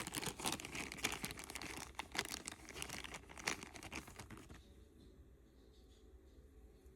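Small plastic jewellery bag crinkling as it is handled and opened, with dense crackling for about four and a half seconds before it dies down to faint rustling.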